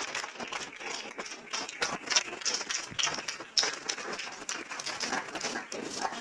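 Audience applauding with a dense, uneven patter of hand claps.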